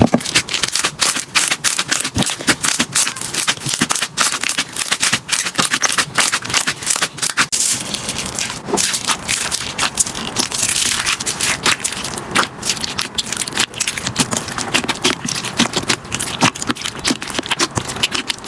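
Slime being pressed and worked by hand, giving a dense run of rapid crackling clicks and pops.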